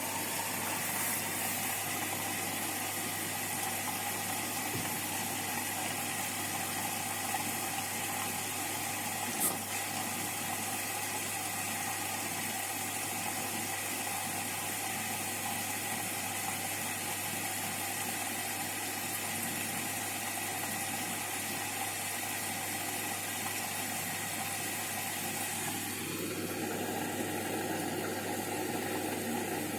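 Bosch Series 6 washing machine at the start of its wash cycle, with a steady rush of water filling the machine. Near the end the drum motor whines up to a higher note, holds it for a few seconds and winds down as the drum turns.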